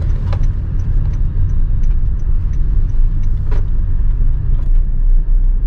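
Steady low rumble of a car driving along a road, heard from inside the car, with faint regular ticking.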